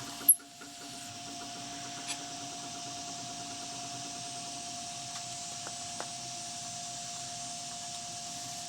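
Wood lathe running with a steady whine while a turning tool rubs and cuts on the spinning pear-wood handle, with a sharp knock just after the start.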